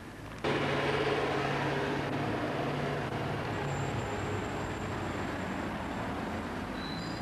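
A motor vehicle's engine running close by in street traffic. It cuts in abruptly about half a second in, then slowly eases off.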